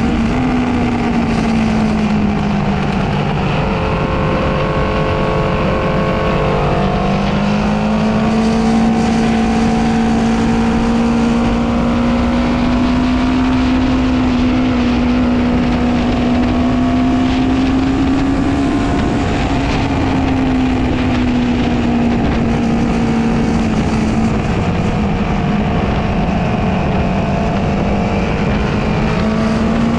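Honda CB500's parallel-twin engine running hard around a race circuit, with wind rushing over the microphone. The engine note dips in the first few seconds, climbs again about seven seconds in and holds steady, falls around twenty seconds in, then rises again near the end.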